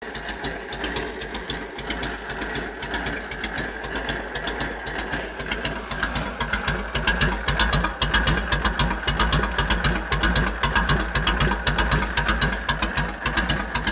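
Harley-Davidson WLA 45 flathead V-twin idling with its uneven 'potato-potato' exhaust beat, a steady train of pulses. It gets louder about halfway through.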